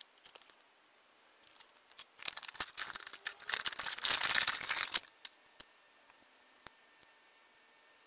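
Cardboard retail box and its packaging being opened and handled, rustling and crinkling for about three seconds as the heatsink is pulled out, followed by a few light clicks and taps.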